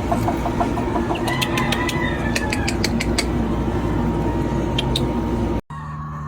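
Chickens calling faintly over a loud, steady low rumble, with a run of sharp clicks about one to three seconds in. The rumble cuts off abruptly near the end, leaving a quieter stretch.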